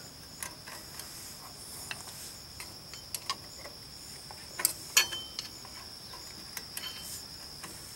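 Light, scattered metal clicks and taps from the shoes, springs and spreader bar of a Ford Bronco II rear drum brake as they are pushed into place by hand. The sharpest clicks come about five seconds in.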